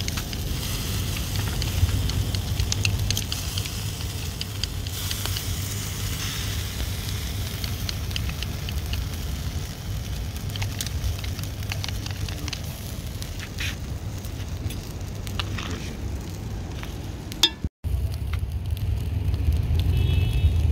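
A whole slinger fish sizzles on a braai grid over hot coals as basting is brushed onto it. Small crackles come from the coals, and a steady low rumble runs underneath. The sound cuts out for an instant near the end.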